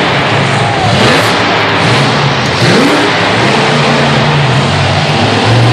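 Monster truck engine revving hard, its pitch climbing and dropping as the throttle is worked, loud throughout.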